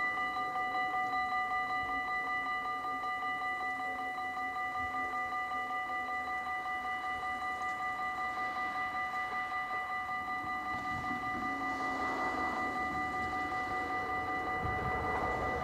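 Dutch level-crossing warning bell ringing with a rapid, even, metallic pulse while the half-barriers come down and stay down. Near the end the rumble of the approaching train starts to rise under it.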